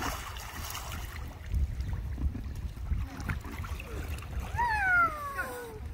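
Children splashing and moving about in a swimming pool, with a splash right at the start. Near the end a child gives one long high call that falls in pitch.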